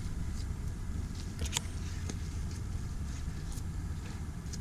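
Wind buffeting the microphone outdoors, a steady low rumble, with a faint click about a second and a half in.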